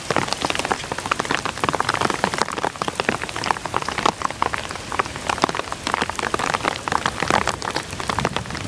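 Rain coming down in a storm, a dense, irregular patter of drops hitting close to the microphone.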